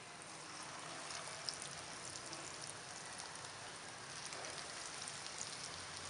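Potato-and-spinach pakoras in gram-flour batter deep-frying in hot oil: a steady sizzle with fine crackles, growing a little louder about a second in as more battered pieces go into the oil.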